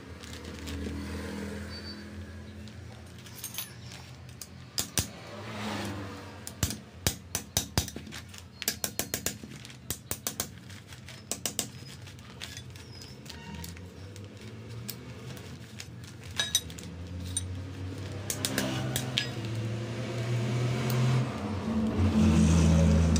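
Quick metal clicks and taps from a screwdriver and spanner working on a clutch basket, many in a run through the middle. Under them a vehicle engine runs steadily in the background, growing louder near the end.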